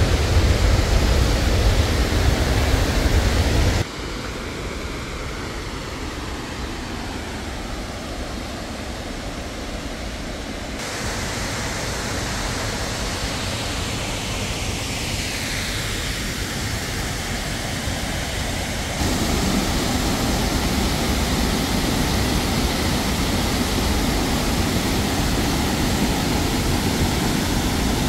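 Steady rushing water of an Alpine waterfall and its mountain stream, a dense hiss with no pauses, stepping suddenly up or down in level about four, eleven and nineteen seconds in.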